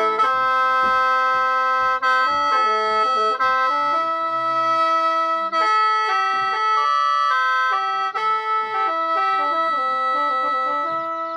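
Khaen, the bamboo free-reed mouth organ, played in lai noi mode: a continuous reedy melody of changing notes and chords over steady held drone notes.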